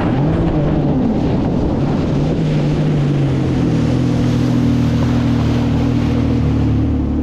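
Personal watercraft engine running under way on the water, its pitch dipping and rising over the first couple of seconds, then holding steady. It is running normally on a test run after repairs, with wind and water noise on the microphone.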